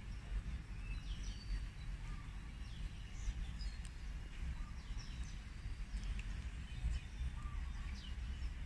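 Many birds chirping, short quick calls that sweep downward in pitch, scattered throughout, over a steady low rumble of strong wind buffeting the microphone.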